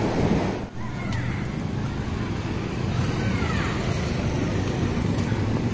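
Beach surf and wind noise, then a short drop about half a second in. After that comes steady street ambience with a low rumble of traffic and motorbikes.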